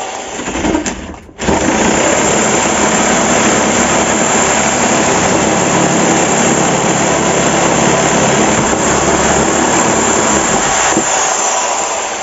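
A power tool cutting at full speed. It starts about a second and a half in, runs steadily and loudly, then winds down with a falling whine near the end.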